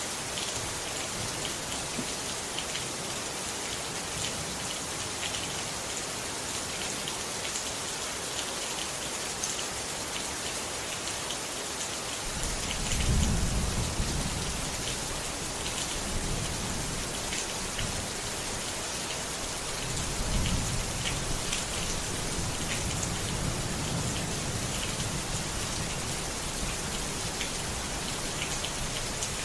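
Steady rain falling, a dense hiss with fine pattering drops. Low rumbles of thunder come in about twelve seconds in and again about twenty seconds in, the first the louder.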